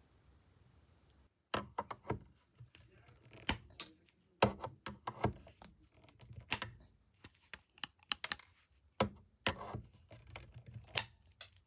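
High-leverage diagonal cutters snipping the overhanging ends of stainless steel frets flush with the fretboard edge: an irregular run of sharp snaps and clicks starting about a second and a half in, a few of them loud.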